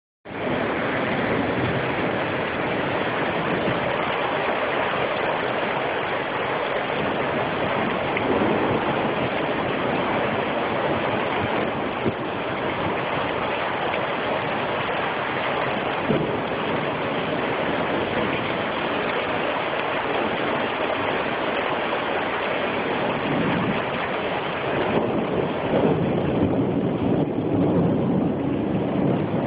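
Heavy rain falling steadily during a storm at night, a constant rushing hiss. Near the end the sound grows deeper, with a lower rumble swelling in.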